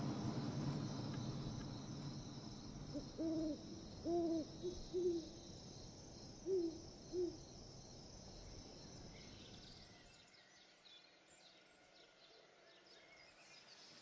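Owl hooting: a run of about seven short hoots over a few seconds, with a faint steady high insect drone underneath that fades away.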